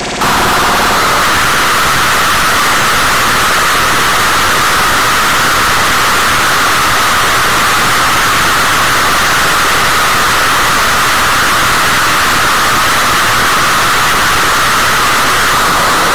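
Harsh digital noise music: a loud, unbroken wall of static hiss, brightest in the upper midrange. It cuts in abruptly at the start, replacing a busier stuttering passage, and holds unchanged.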